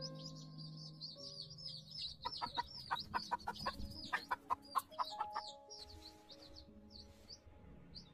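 A brood of chicks peeping continuously in quick high chirps. A hen clucks in a rapid run of short clucks from about two to five and a half seconds in.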